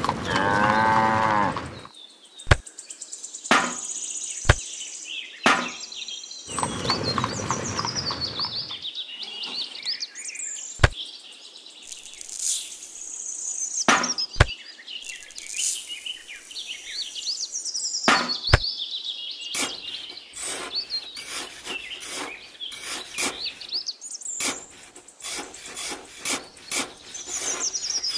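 A cow moos once in the first two seconds. After that come scattered sharp clicks and short rustling noises, over birds chirping throughout.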